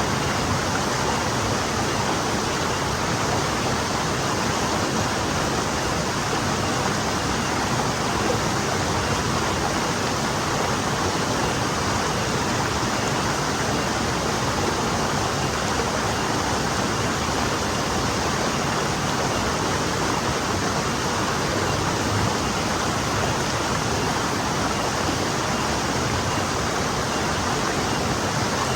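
Forest stream flowing steadily over stones, a continuous even rush of running water.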